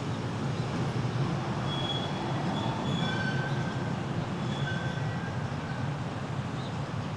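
Electric streetcar running away along the track with a steady low rumble. A few faint, brief high-pitched wheel squeals come in the middle.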